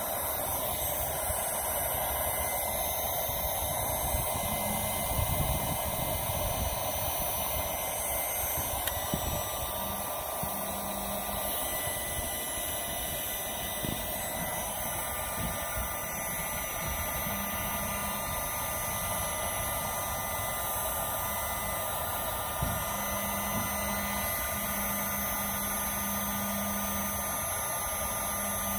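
Electric heat gun running steadily, blowing hot air onto a freshly applied muffler repair paste patch to cure it.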